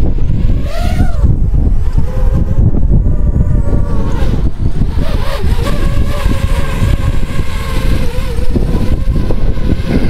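Heavy wind rumble on the microphone from gale-force gusts, over a DJI FPV drone's motors and propellers: a rising whine as they spin up for take-off about a second in, then a steady whine as the drone hovers holding its position.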